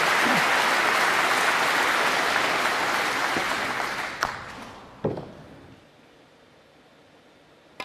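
Snooker audience applauding a shot, the applause dying away about four to five seconds in. A couple of sharp knocks sound as it fades.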